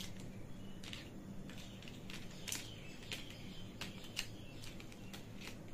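Plastic alphabet letters being picked up and set down on a table: a scatter of light clicks and taps at irregular intervals, over a faint low hum.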